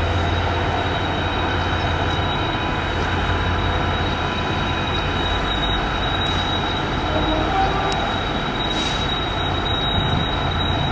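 GB Railfreight Class 66 diesel locomotive 66754, with its EMD two-stroke V12 engine, approaching at the head of a coal train of hopper wagons: a steady low engine drone under the rumble of the train on the rails, with a thin high whine throughout.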